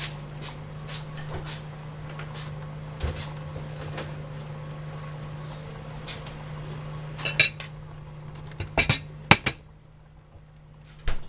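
Kitchen clatter: pots, dishes and utensils knocking and clinking now and then, with a cluster of sharp clanks about seven seconds in and the loudest ones about nine seconds in, over a steady low hum.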